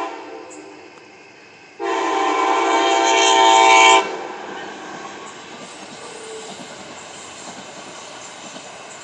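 Amtrak passenger train's multi-tone air horn at a grade crossing: a brief toot at the start, then one loud blast of about two seconds that cuts off about four seconds in. After it the train rolls past with a steady rumble.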